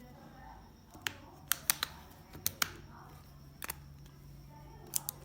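A series of about nine sharp, irregularly spaced clicks, some in quick pairs, over a faint steady low hum.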